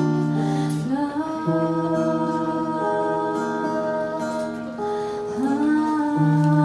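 Female voice singing long held notes, sliding up into new notes twice, over acoustic guitar: the closing stretch of a live acoustic song.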